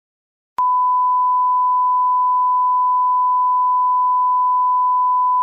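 Emergency-alert attention tone: a single pure, steady tone that starts with a click about half a second in and holds unchanged for nearly five seconds.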